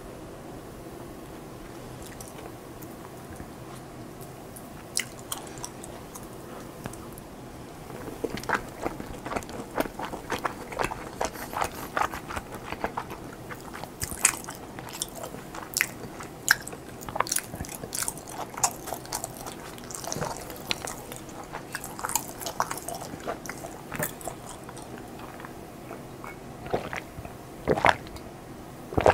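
A person chewing food close to the microphone, with many quick, sharp mouth clicks that start about eight seconds in after a quieter stretch of steady background hiss.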